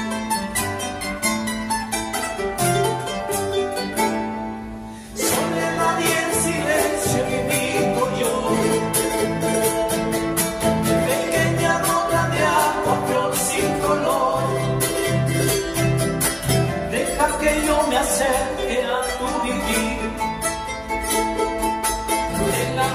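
Andean folk music played live: a nylon-string classical guitar and a charango strummed and plucked, with men singing together. The playing drops out briefly about five seconds in, then comes back fuller.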